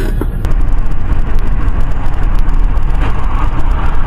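Steady road and engine noise of a car driving at highway speed, heard from inside the cabin through a dashcam; the sound changes and gets slightly louder about half a second in.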